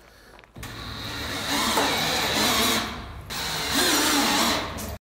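Cordless drill, used rather than an impact driver, driving screws through metal gable trim into a metal roof panel: two runs of about two seconds each with a short pause between. It cuts off suddenly near the end.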